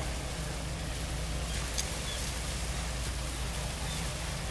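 Steady shoreline noise of wind on the microphone and small waves on a gravel beach, with a deep rumble underneath. A faint short high call about two seconds in.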